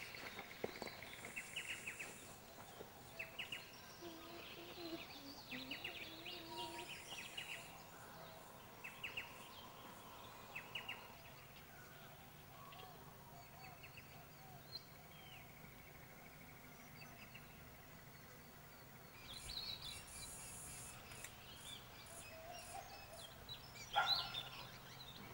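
Quiet outdoor ambience with scattered short bird chirps and calls over a faint hiss, and one short, louder call near the end.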